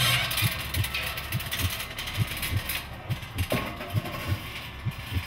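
Heartbeat sound effect: low, muffled thumps in pairs, beating steadily. A noisy rustling rattle is loud at the start and fades away over the first few seconds.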